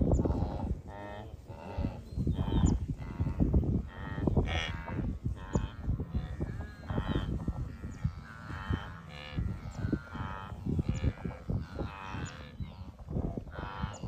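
A big herd of wildebeest grunting and lowing: many short, nasal calls overlapping one after another over a steady low rumble.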